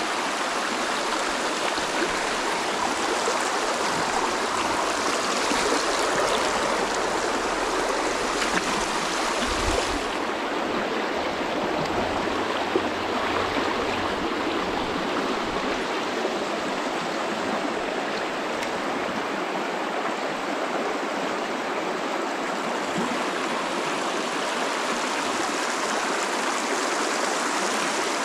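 Shallow, rocky mountain creek running over riffles and stones: a steady, even rush of water.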